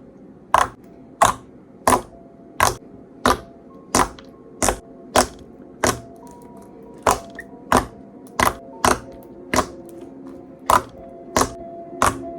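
Slime being pressed and squeezed, making sharp popping clicks at a fairly regular pace of about three every two seconds, over soft background music.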